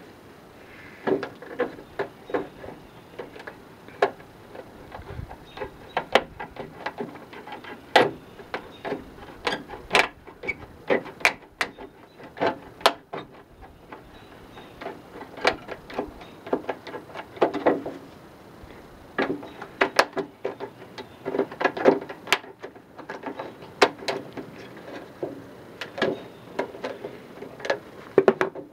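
Aviation tin snips cutting the sheet-metal rain gutter to enlarge a downspout hole: a run of sharp, irregular snips and clicks, a few a second, as the jaws bite and close on the metal.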